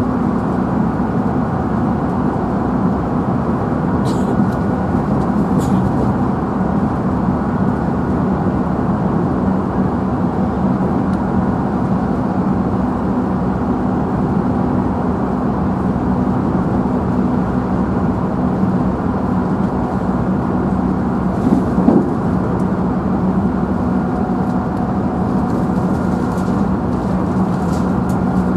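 Inside the motor car of a JR Central 311 series electric train running at steady speed: the traction motors hum in steady tones over the rumble of the wheels on the rail. A few faint clicks and one short knock come through about two thirds of the way in.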